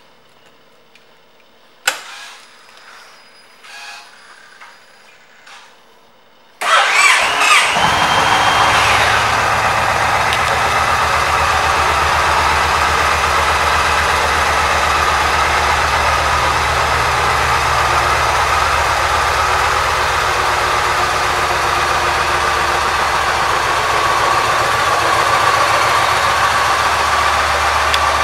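Yamaha Stratoliner's 1854 cc air-cooled V-twin being started. A few clicks from the key and switches come first, then about six and a half seconds in the starter cranks briefly, the engine catches and settles into a steady idle.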